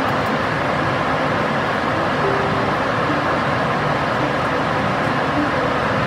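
Jet airliner cabin noise in flight: a steady, even rush of engine and airflow noise, heard from a seat inside the cabin.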